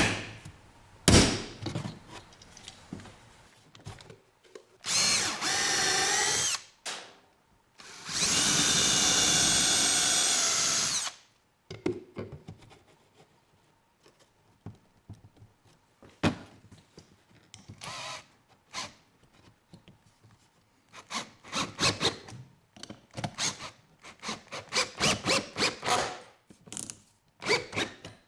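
A single sharp knock, a center punch being struck. Then a power drill runs twice, first for about a second and a half and then for about three seconds, with a steady whine, drilling the holes. Later comes a quick run of clicks and knocks.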